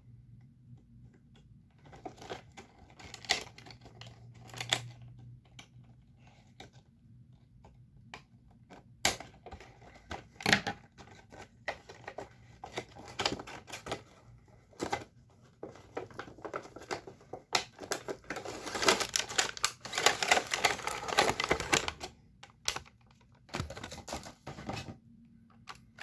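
Toy packaging being handled and opened by hand: scattered clicks and knocks of plastic and cardboard, with a longer stretch of crinkling and rustling about three quarters of the way through.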